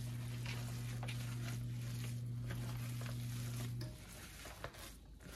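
A steady low hum that cuts off about four seconds in, over faint squishing of plastic-gloved hands kneading ground beef and breadcrumbs in a plastic container.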